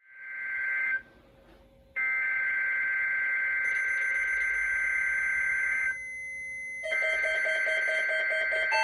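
Emergency Alert System SAME header: the shrill two-tone data buzz of a weather-radio alert, sent in bursts with a short break about a second in and a quieter stretch near six seconds.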